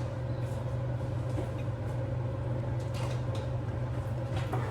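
Steady low mechanical hum, with a few faint light clicks about three seconds in and near the end.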